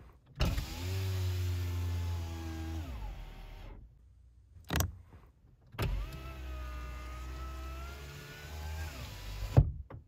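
Car power window motor running twice, each run about three seconds, its whine shifting in pitch as the glass travels and slows at the end of its track. A sharp click between the two runs, and a loud thump near the end as the glass stops.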